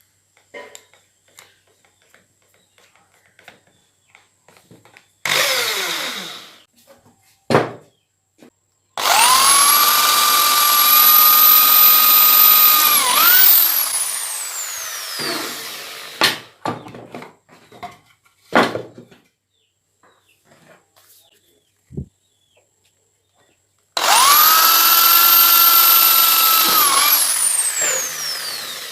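Electric drill running in two bursts of about four seconds each, a steady high whine that falls in pitch as the motor winds down. A shorter burst and a few sharp knocks come between them.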